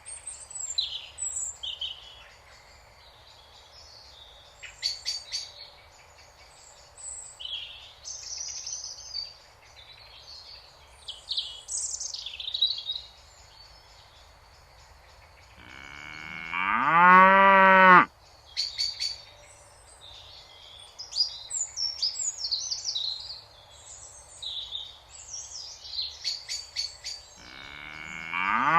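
Songbirds chirping and trilling throughout, with a cow mooing: one long, loud moo that rises in pitch and then holds, a little past halfway, and another moo beginning at the very end.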